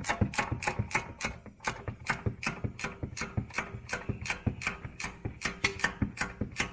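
Hand socket ratchet clicking steadily, about five clicks a second, as it is swung back and forth to tighten a sway bar end link nut on a coilover install.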